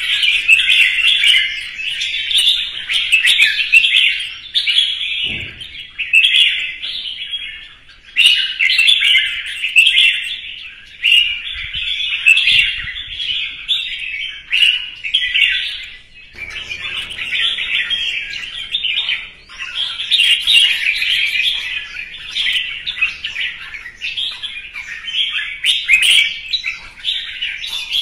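Red-whiskered bulbul singing its competitive song (hót đấu): fast, bright, chattering phrases strung together almost without pause, broken only by a few short gaps.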